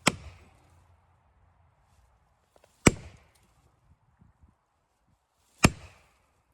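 Three heavy single blows, evenly spaced about three seconds apart, each sharp with a short ring-out: a striking tool such as an axe or sledgehammer hitting during the felling of a dead ash tree.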